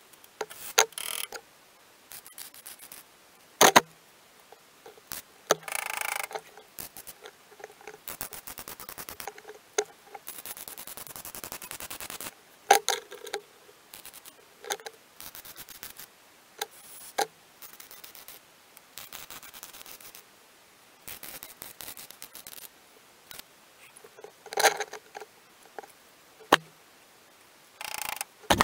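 MIG welder stitch-welding a thin steel body repair panel: short crackling bursts of arc with pauses between, one longer run of about four seconds near the middle, and a few sharp clicks between welds.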